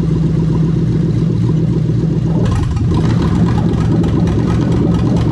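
Toyota 1UZ-FE V8 engine running steadily. About two and a half seconds in, its deepest rumble thins and a rapid, irregular clicking joins it.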